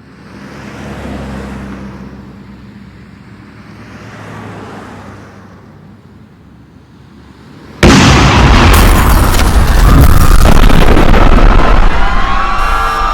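A low rumble swells and fades, then about eight seconds in a sudden, very loud explosion goes off and keeps rumbling for several seconds. Near the end a wavering siren-like tone rises and falls over it.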